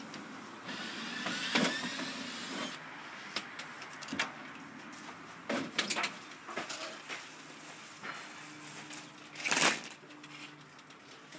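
Cordless drill backing out screws in short runs, with sharp knocks and clanks from a sheet-aluminium window awning being worked loose. The loudest clatter comes near the end as the awning is pulled off the wall.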